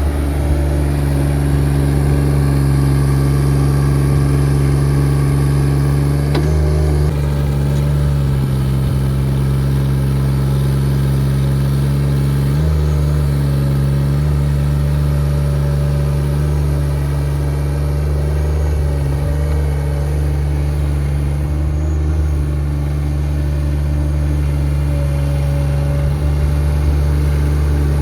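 Small diesel engine of a tracked compact skid steer loader running at a steady speed, with slight shifts in pitch about six and thirteen seconds in.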